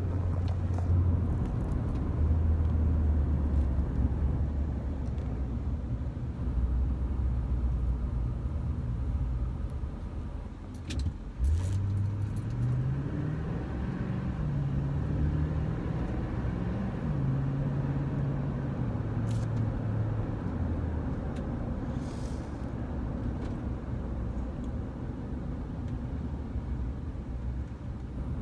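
A car being driven: a steady low engine hum and road rumble. From about a third of the way in, the engine note rises and then steps up and down for several seconds, as the car speeds up and changes speed.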